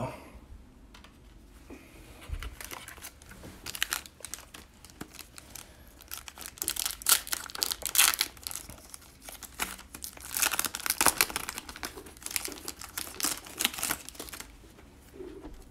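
Foil wrapper of an NBA Hoops trading-card pack crinkling and tearing as it is ripped open by hand and the cards are slid out. The crackling starts about three seconds in and dies away near the end.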